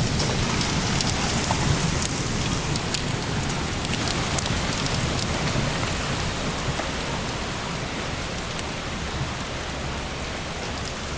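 Very hard rain pouring down in a steady, dense hiss, easing slightly toward the end.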